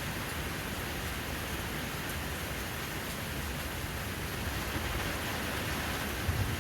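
Steady rain falling and pattering on a surface, an even hiss that grows slightly louder from about two-thirds of the way in.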